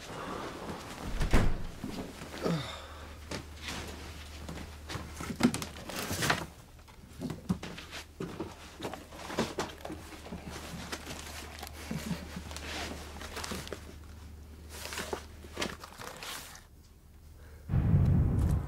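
Scattered knocks and thuds of movement in a room over a steady low hum. A louder sound comes in just before the end.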